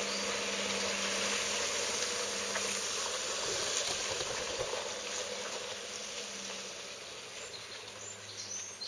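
Toyota Hilux 3.0 D-4D four-cylinder turbodiesel pickup driving away, its engine hum growing steadily fainter, with insects buzzing.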